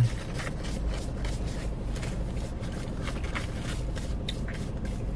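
Eating sounds: chewing and faint rustles and clicks from handling a sandwich and its wrapper, over a steady low hum in a car cabin.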